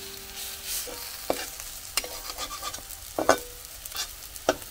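Cauliflower-leaf fritters sizzling in hot oil in a wok, while a metal spatula scrapes and strikes the pan as they are turned. The strikes give several sharp, ringing clinks; the loudest comes a little past the middle.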